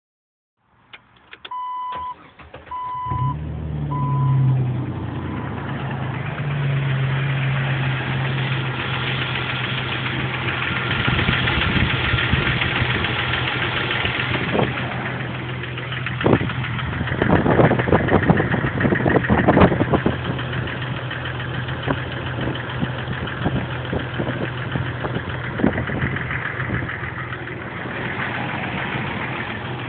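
Jeep Wrangler TJ's 4.0-litre inline-six cranking briefly and starting about three seconds in after a few short beeps, then idling steadily. The owner says this engine makes a ticking noise on start-up that goes away once it is completely warm, with good oil pressure.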